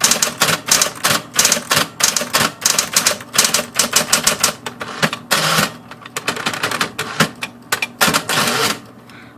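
Smith Corona Coronet Automatic 12 electric portable typewriter being typed on: sharp key-strike clacks in quick runs, broken by a longer mechanical rushing sound about halfway through.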